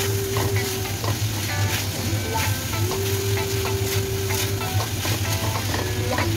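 Stir-frying in a stainless steel wok: food sizzling steadily while a spatula stirs and scrapes it, with frequent clicks of the utensil against the pan.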